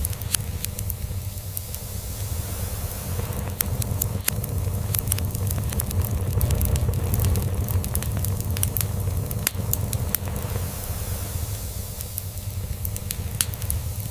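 Log fire crackling, with frequent sharp snaps and pops over a steady low rumble of a cat purring.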